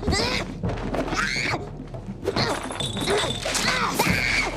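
High-pitched shrieks and yelps in short swooping cries, mixed with thuds and crashes of a body hitting the couch and things being knocked about.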